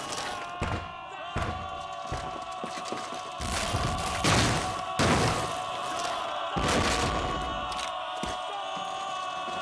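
Battle-scene sound effects: several heavy thuds and crashes, clustered in the middle, over sustained dramatic music.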